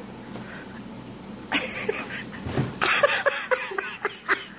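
People laughing in short, quick bursts from about halfway through, after a quieter start.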